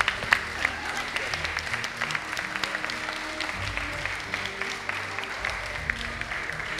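Guests applauding, with soft music playing underneath. The clapping is thickest in the first second.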